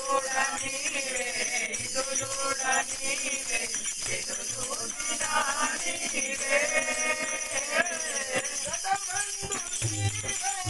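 Devotional bhajan music: a group sings to a hand drum over a steady jingling of hand percussion.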